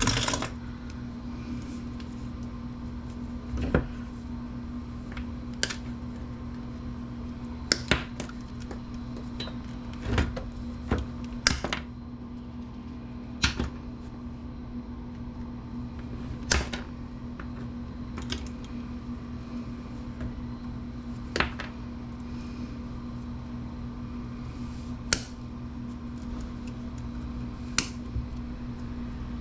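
Irregular sharp clicks and knocks of metal parts and hand tools being handled while taking apart a desktop computer, about a dozen over the stretch. A steady low hum runs underneath.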